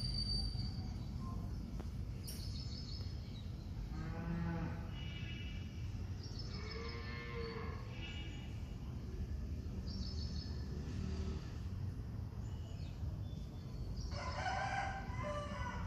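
An animal calling three times in long, bending calls of about a second each, with short high bird chirps in between.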